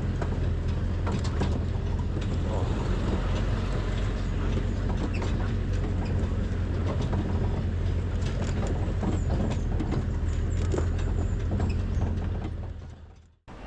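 Engine of a small vehicle running steadily under way, heard from aboard, with many rattles and knocks over its hum; it fades out near the end.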